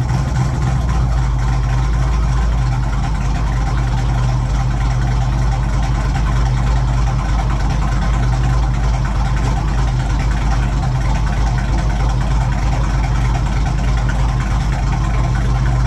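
Fox-body Ford Mustang's 289 V8, fitted with a single-plane Torker intake and a Holley 600 cfm carburettor, idling steadily with no revs, running after a cold start at about 10 °F.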